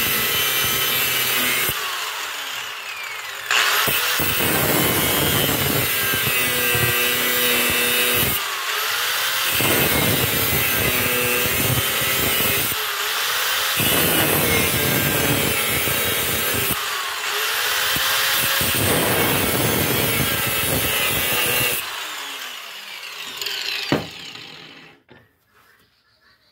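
Angle grinder with its disc biting into a steel railroad spike, a loud steady grinding whose pitch sags and recovers every few seconds as the disc is pressed in and eased off. Near the end the grinder is taken off the work, winds down and stops.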